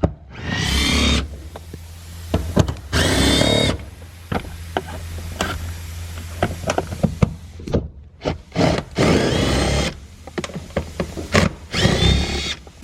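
A handheld power tool whirring in four bursts of about a second each, running out the four bolts that hold a car's gear shifter. Short metallic clicks and clinks of tools and parts come between the bursts.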